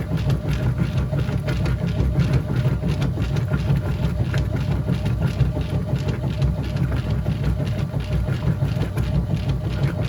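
Whirlpool top-load washing machine running mid-cycle, a steady low rumble.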